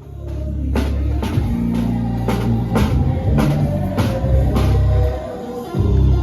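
A band playing rock-style music: heavy electric bass notes, a drum kit keeping a steady beat of about two hits a second, and guitar.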